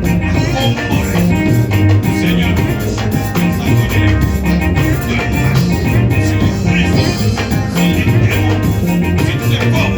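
Upbeat band music with a steady beat and a moving bass line.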